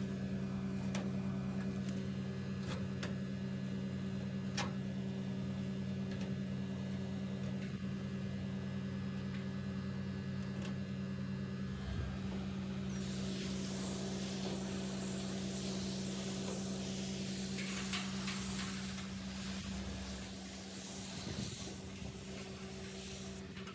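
Steady electrical hum of a running air conditioner, with a hissing spray that starts about halfway through and stops just before the end.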